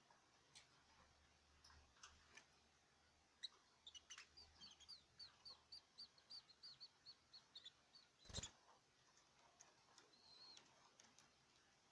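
Small cage bird chirping faintly, a run of quick high notes at about four a second lasting a few seconds, with scattered single ticks around it. A sharp knock just after the run is the loudest sound.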